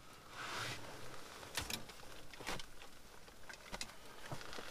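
Faint handling noise: a brief rustle about half a second in, then a few small scattered clicks and taps.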